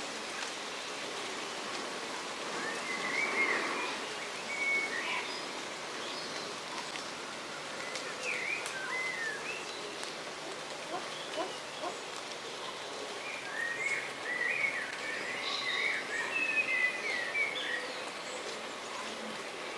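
Small songbirds singing short, scattered chirping and warbling phrases over a steady hiss of outdoor ambience, busiest about three seconds in and again through the last third.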